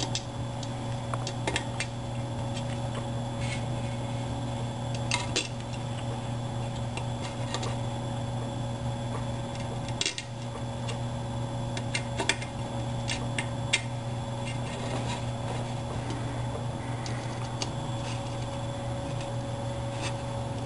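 Small sharp metallic clicks and clinks of a screwdriver and screws against a metal plate as screws are driven in, scattered irregularly over a steady low hum.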